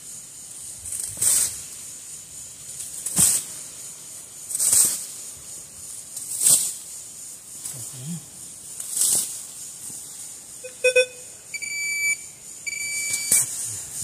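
Small spade chopping and scraping into dry dirt, about five strokes a second or two apart. Near the end a metal-detecting pinpointer gives a short beep and then two steady tones, signalling a metal target in the hole.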